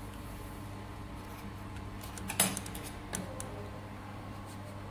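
Thin metal sheets handled against a steel block and table: one sharp metallic clink about halfway through and a few lighter ticks after it, over the steady hum of the running laser welding machine.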